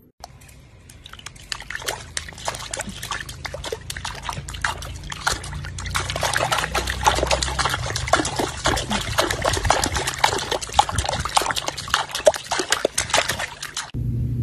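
Pool water splashing and sloshing as a corgi paddles in a swimming pool: a dense, quick run of small splashes that grows louder over the first few seconds and cuts off suddenly near the end.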